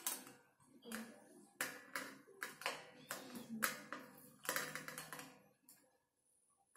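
Irregular metal clicks and clacks as hands work the stainless lid and latch of a homebrew keg to open it. About a dozen sharp knocks come unevenly and stop roughly a second before the end.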